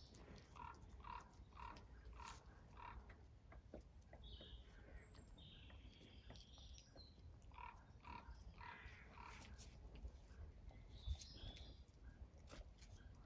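Faint birdsong: twice a run of short calls repeated about two a second, with higher chirps in between.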